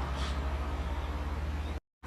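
A steady low rumble under a faint hiss, with no chimes ringing. It cuts off abruptly to silence near the end.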